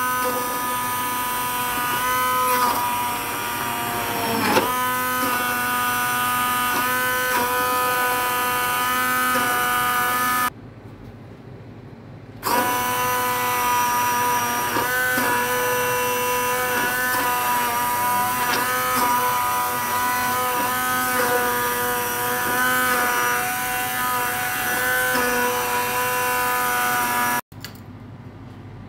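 Electric immersion blender running in a pot of cooked broccoli soup, puréeing it with a steady motor whine whose pitch dips slightly now and then as the blade meets the chunks. It stops for about two seconds near the middle, starts again, and cuts off just before the end.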